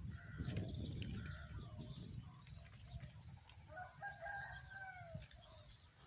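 A rooster crowing once, a call of about a second and a half starting nearly four seconds in and falling in pitch at its end. In the first two seconds a louder low rumble sits on the microphone.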